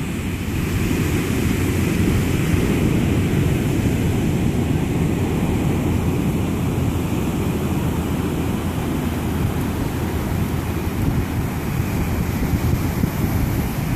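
Wind buffeting the microphone, a steady low rumble, over the continuous wash of ocean surf breaking on the beach.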